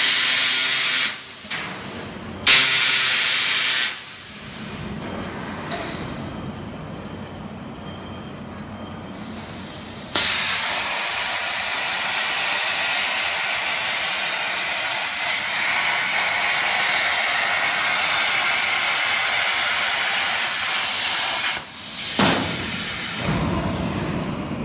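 CAMEL CA-1530 CNC plasma cutting machine's torch: two short bursts of hiss in the first four seconds, then from about ten seconds in a loud, steady hiss of the plasma arc cutting through the steel sheet, stopping abruptly after about eleven seconds. A few thumps follow near the end.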